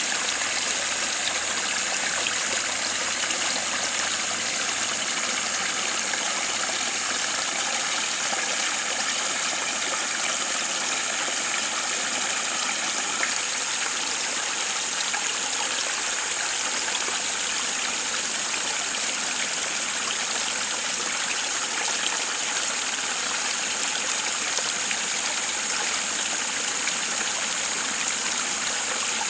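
Shallow stream water flowing steadily, an even rushing with a constant high hiss on top.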